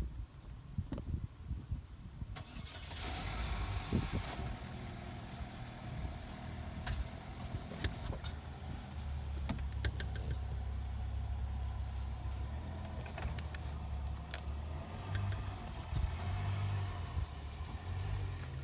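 A car engine starts about two and a half seconds in, then settles into a steady idle. Scattered sharp clicks and knocks sound over it.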